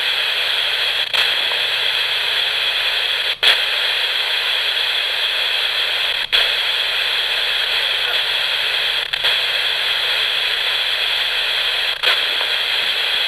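Radio static: a steady white-noise hiss from a radio with no antenna. It scans between two frequencies, and the hiss briefly drops out with a click about every three seconds as the tuning switches.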